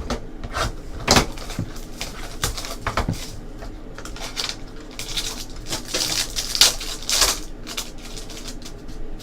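Trading cards being handled and sorted: a series of sharp clicks and taps, with a few longer sliding, rustling swishes about two-thirds of the way through.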